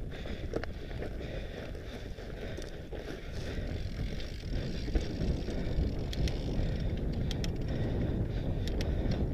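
Mondraker Panzer fat bike ridden over a rough dirt and gravel trail: a steady low rumble of the fat tyres and wind buffeting the onboard camera's microphone, with scattered sharp clicks and rattles from about five seconds in.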